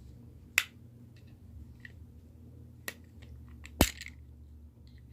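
Sharp plastic clicks and snaps as the old, brittle housing and clips of a Mercedes W124/W201 seat adjustment switch are pried apart. There are three distinct snaps, the loudest about four seconds in, with a few faint ticks between, over a low steady hum.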